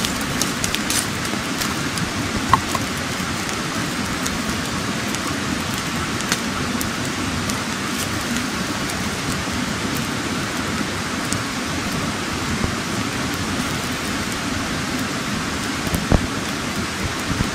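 A steady rushing hiss with scattered sharp crackles and pops from a wood campfire burning under fish skewers; the crackles come mostly in the first few seconds and again near the end.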